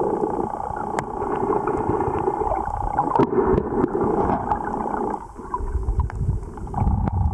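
Muffled underwater sound picked up by a camera held under shallow sea water: sloshing and gurgling water with scattered sharp clicks and a steady hum.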